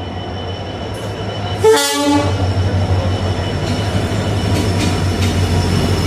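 Mathura Barmer Express passenger train running with a steady rumble and low hum, and a short horn blast about two seconds in.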